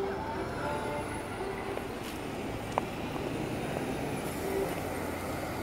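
City bus driving past close by, a steady engine and tyre rumble over general street traffic, with one sharp click about three seconds in.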